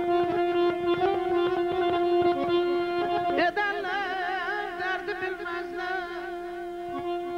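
Live Azerbaijani folk music led by a garmon (button accordion): a steady drone under quick, rippling melody notes. About three and a half seconds in, a wavering, trilled melodic line takes over above the drone.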